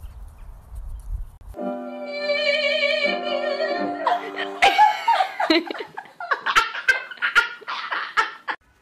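Piano chords held under a woman's wavering operatic high note. From about four seconds in this breaks into her loud, shrieking fits of laughter.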